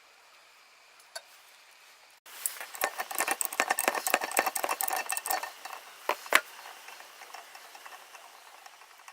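Metal parts and tools being handled on a workbench. Quick, dense clicking and scraping starts suddenly about two seconds in and lasts about three seconds, followed by two sharper knocks and then faint ticks.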